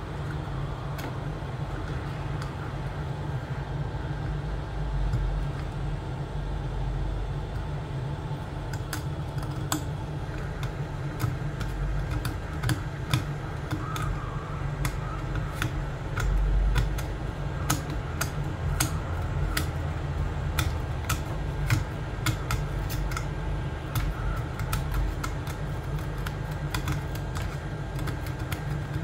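Hot-air rework gun blowing steadily, with a fast, irregular run of small clicks and scrapes, mostly from about nine seconds in, as a pick works at softened resin residue in the metal detector's plastic housing.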